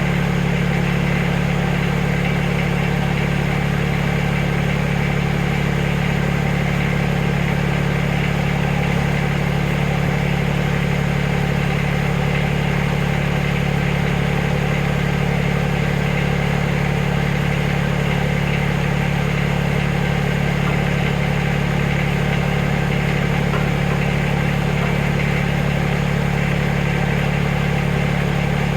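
Backhoe engine running steadily at an even speed, with no revving.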